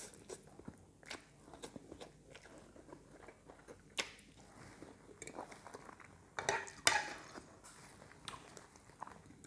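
Close-up eating sounds of pancit canton noodles: soft chewing and wet mouth noises, with a sharp click about four seconds in and a louder run of slurping and smacking about two-thirds of the way through.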